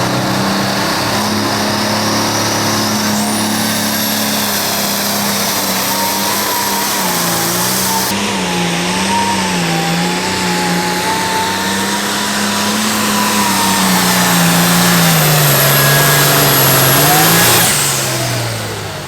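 Pro Farm turbocharged diesel pulling tractor running flat out under load down the track, its engine note wavering up and down, with a high whistle that climbs about three seconds in and holds. Near the end the throttle is cut and the engine sound falls away suddenly, marking the end of the pull.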